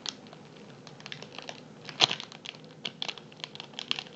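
Clear plastic packaging bag around a squishy toy crinkling as it is handled, in scattered light crackles, with one louder crackle about two seconds in.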